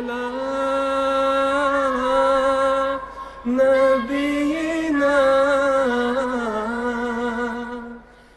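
Intro jingle of a cappella chant-like singing: a voice holds long, slowly gliding notes, breaks off briefly about three seconds in, then carries on and fades out near the end.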